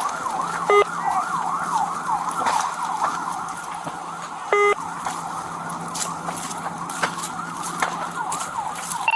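Police cruiser siren in a fast yelp, its pitch rising and falling several times a second over a steady low hum. Two short, loud electronic beeps sound about a second in and again near the middle, and a few sharp pops cut through.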